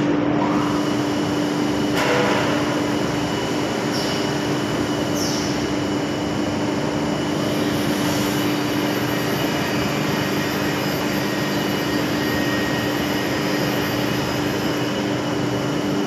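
Steady plywood-mill machinery noise: a constant hum over a loud, even rush, with a few brief sharper sounds about two, four and five seconds in.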